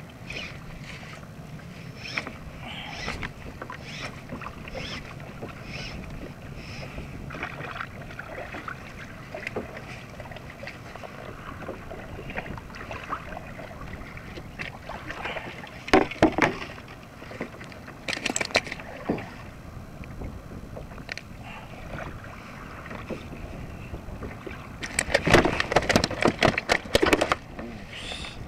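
Water slapping and lapping against a plastic sit-on-top kayak's hull. Sharp splashes and knocks come about halfway through and again in a dense run near the end, as a hooked fish thrashes at the surface beside the kayak.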